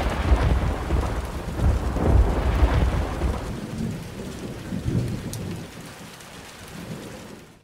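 Thunderstorm: thunder rumbling over steady rain. The rumble is loudest in the first few seconds and dies away toward the end.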